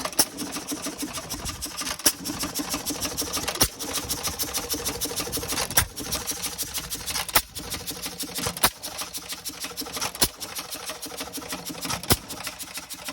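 Amanco 3½ hp single-cylinder hit-and-miss engine running, firing with a sharp bang about every one and a half to two seconds, with a fast ticking clatter from the gears and valve gear between firings. A little knock and rattle are in it, which the owner thinks needs some adjustment.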